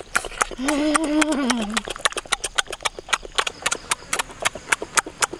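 Noisy chewing and lip-smacking of people eating cooked fish by hand, a quick run of wet clicks several times a second. A hummed "mmm" of enjoyment sounds about a second in.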